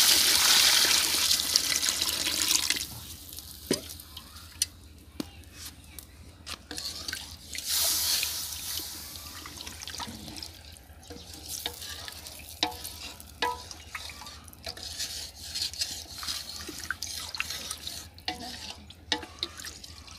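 Water poured from a metal bucket into a large aluminium cooking pot of chicken, a loud steady splashing that stops about three seconds in. Then a wooden spoon stirs the liquid, with scattered knocks against the pot and a short swell of sloshing about eight seconds in.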